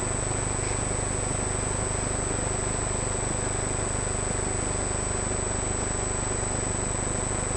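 Steady machine hum with hiss and a faint high whine, unchanging throughout.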